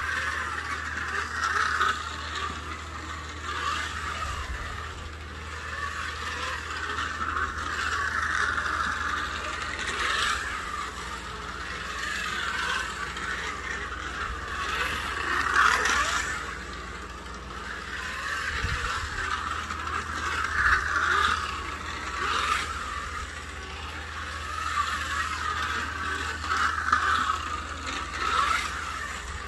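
Strombecker 1/24-scale Jaguar D-Type slot car running: its small electric motor and gears whir, with scraping and clicking, swelling and fading every few seconds as the car laps.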